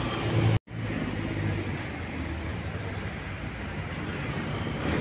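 Street traffic in a small town: a vehicle engine rumbling close by at first, then a steady hum of traffic. The audio drops out completely for a split second about half a second in.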